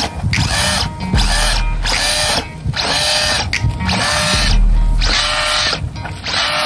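The small brushless electric motor of a 1/10-scale RC monster truck, revved in repeated throttle bursts, a little more than one a second, each a rising whine with the wheels spinning free: the truck is upside down and being blipped until it rolls back onto its wheels.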